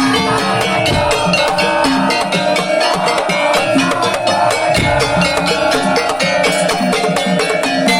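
A tong-tong percussion ensemble playing: a dense, fast run of wooden strokes over a pitched melody and drum beats.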